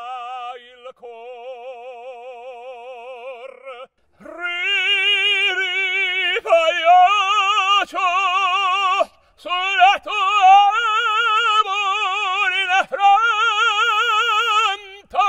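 Operatic singing: one voice holds long notes with a wide, even vibrato. It is quieter for the first few seconds, then much louder from about four seconds in, with short breaks between phrases.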